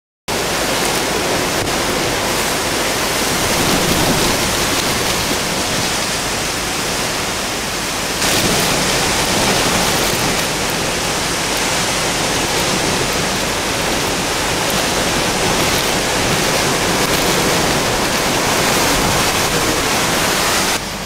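Hurricane-force wind and heavy rain: a loud, steady rushing noise with no let-up, which turns suddenly louder and brighter about eight seconds in.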